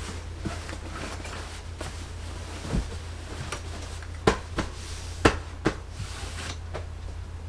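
A handful of short, sharp knocks and clicks, the loudest two near the middle, over a steady low hum.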